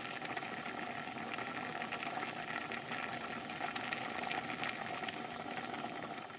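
A pot of kimchi stew with Spam and tuna boiling hard: steady bubbling with many small crackling pops.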